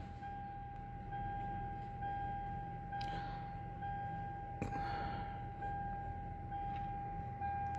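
A steady high electronic tone that pulses a little louder about once a second, with two short clicks, about three and four and a half seconds in.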